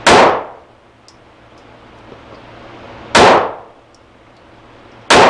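Three pistol shots from a Sig Sauer P365 subcompact pistol, the first right at the start, the next about three seconds later and the last about two seconds after that. Each shot is a sharp crack followed by a brief echo in the indoor range.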